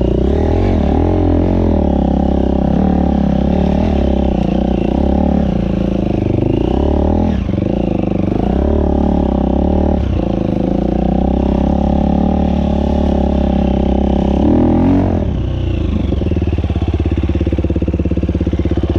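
KTM enduro motorcycle engine running as the bike is ridden over a rough dirt trail, its revs rising and falling with the throttle. About fifteen seconds in it revs up briefly, then drops to a low, even beat.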